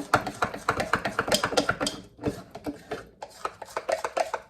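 Pancake batter being beaten in a bowl with a utensil: quick, repeated taps and scrapes against the bowl, several a second, with a short pause about two seconds in.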